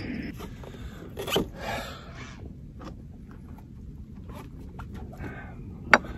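Rustling, rasping handling noises and scattered knocks as a white plastic bucket and fishing gear are handled near the microphone, with one sharp knock near the end.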